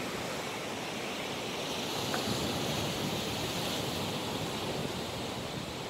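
Sea surf washing and breaking against the rocks at the foot of the cliff: a steady rushing noise.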